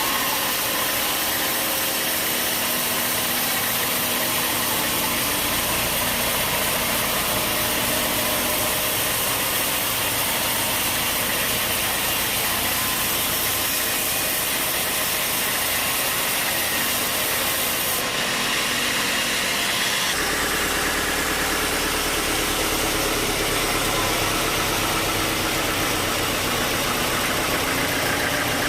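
Sawmill machinery running steadily, with a dense mechanical hum. The sound shifts about eighteen seconds in, and a deeper hum joins from about twenty seconds in.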